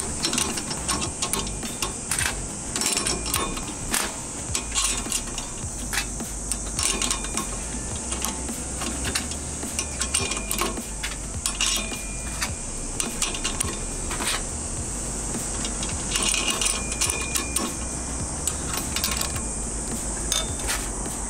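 Light, irregular metal clinks and taps as the stainless steel rotor parts of a speed mill (grinder) are handled and fitted by hand, over a steady high drone of insects.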